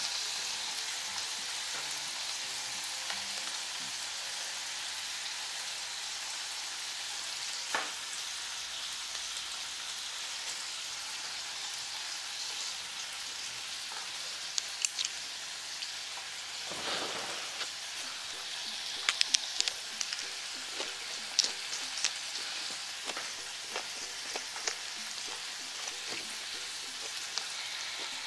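Pork belly, scallops and kimchi sizzling steadily on a hot grill pan, with a few sharp clicks scattered through the second half.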